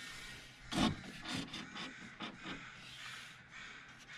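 Crows cawing, a run of several short calls starting about a second in.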